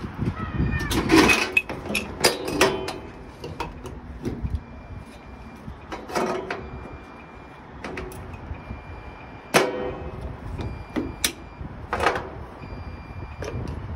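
Metal clanks and clicks of the air-line glad hands and the electrical connector being coupled to the front of a semi-trailer, several with a short ringing tail, over the low rumble of the idling tractor engine.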